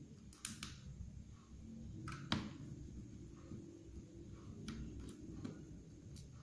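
Scattered small, sharp clicks and taps of tools against a phone being taken apart, the loudest about two seconds in, over a low steady hum.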